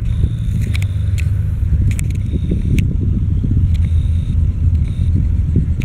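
Bell 47 helicopter running, a loud, steady low rumble of its piston engine and rotor.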